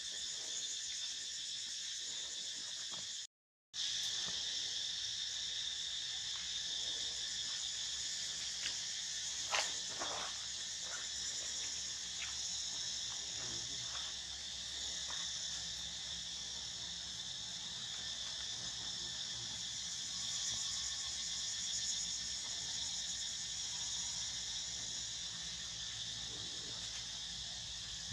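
Steady, high-pitched chorus of insects chirring, with a few faint clicks; the sound cuts out completely for a moment about three seconds in.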